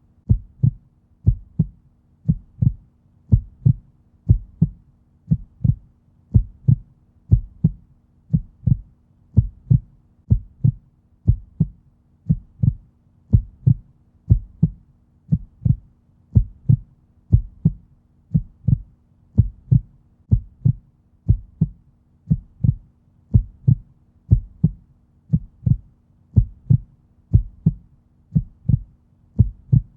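Heartbeat sound: a slow, even lub-dub rhythm of deep, muffled thumps at a resting pace, over a faint low steady hum.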